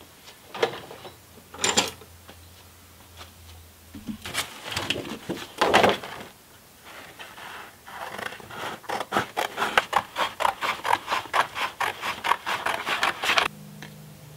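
Paper rustling and being handled, then scissors snipping through brown paper in a quick, even run of cuts, about four or five snips a second, from around eight seconds in until shortly before the end.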